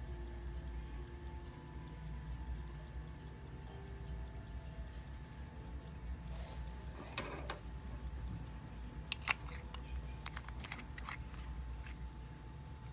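Hamilton 992 railroad pocket watch running, its movement ticking fast and evenly. About halfway through there is some handling rustle, and a sharp click follows a little later.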